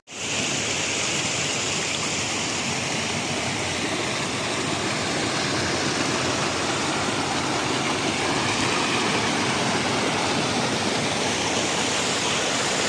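Waterfall in heavy flow, its water rushing with a loud, steady noise that starts abruptly and holds evenly throughout.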